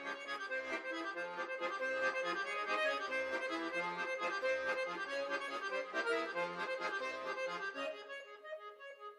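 Accordion playing an instrumental passage: chords over a steady, pulsing bass line, thinning out and fading about eight seconds in.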